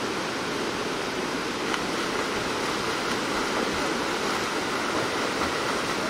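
Steady rush of a mountain stream's rapids: an even noise of fast-flowing water.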